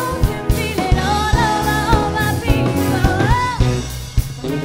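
Live band playing: a woman singing over electric guitars, bass and a drum kit keeping a steady beat, with a held note that bends up and down a few seconds in.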